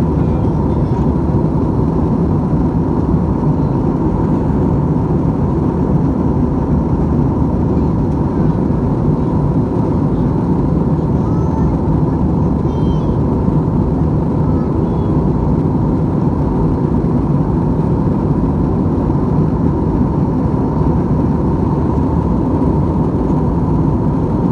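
Steady cabin drone of a jet airliner in cruise: engine and airflow noise, loud and even, with a faint steady hum.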